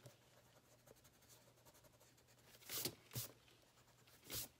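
Pencil eraser rubbing pencil marks off paper in three short strokes, two close together about three seconds in and one near the end, with near silence between.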